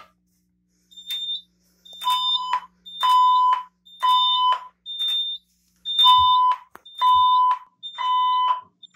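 Fire alarm system in alarm after a pull station is pulled: the notification appliances sound a pulsing alert tone, about one burst a second from about two seconds in, each opening with a short high beep. This is the alert tone ahead of the voice evacuation message.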